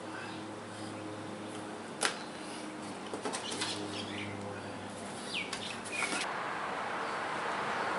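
Plastic packaging rustling and crinkling as unboxed accessories are handled, with a few sharp clicks and taps; from about six seconds in it settles into a steadier hiss.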